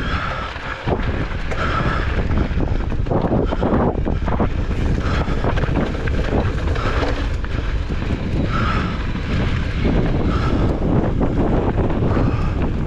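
Strong wind buffeting the microphone, with the clatter and rattle of a mountain bike riding a rough trail mixed in as many short knocks.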